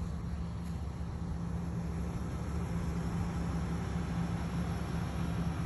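Steady low mechanical hum, holding one constant tone over a low rumble, unchanged throughout.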